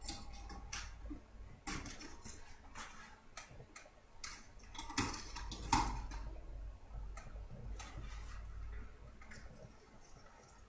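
Irregular clicks and scrapes as the bulb is twisted out of a recessed ceiling light and its trim is pulled down, with a couple of sharper knocks about five and six seconds in.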